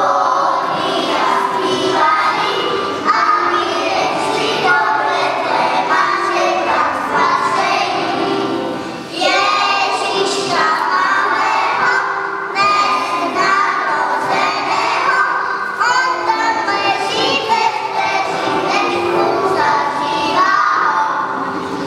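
A group of children singing a Christmas carol together, with a short break between phrases about nine seconds in.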